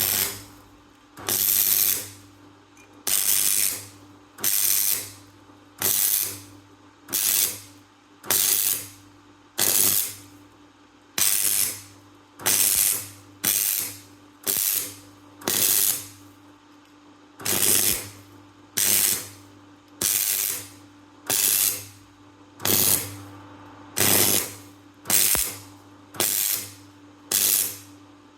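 Steady, even strokes of a hand tool working metal, about one a second, each a short noisy stroke that dies away quickly, over a faint steady hum.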